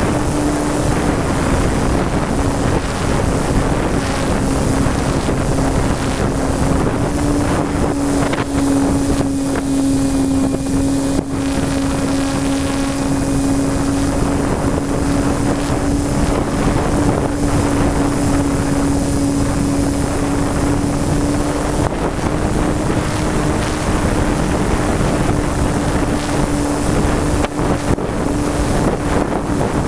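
RC model plane's motor and propeller in flight, a steady drone that shifts slightly in pitch, heard from a camera mounted on the plane. Heavy wind rushing over the onboard microphone.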